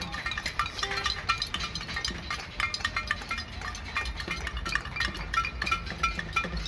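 Rapid metallic clinking, short ringing strikes several times a second, over a low steady rumble of traffic.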